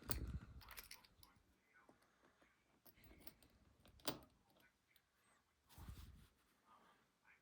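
Near silence with a few faint metallic clicks and taps of small lock parts being handled: a cluster at the start, then single taps about four and six seconds in.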